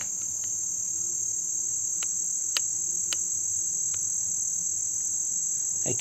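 Insects trilling steadily in one continuous high-pitched band, with a few faint ticks around the middle.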